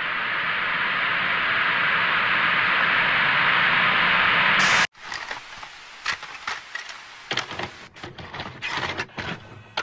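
Steady hiss of static that slowly grows louder and cuts off abruptly about five seconds in, followed by quieter, irregular crackles and clicks.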